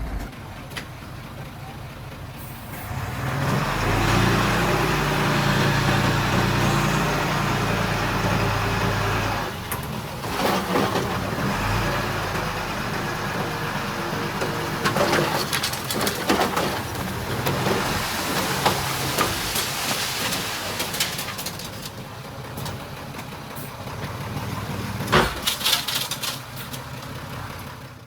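Diesel engine of heavy earthmoving machinery running under load, growing louder about three seconds in, with scattered sharp knocks and clanks.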